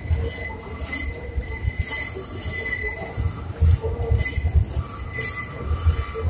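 R62A subway train running along an elevated steel structure: a low rumble with irregular heavy thumps from the wheels, rattling hiss, and a thin steady wheel squeal.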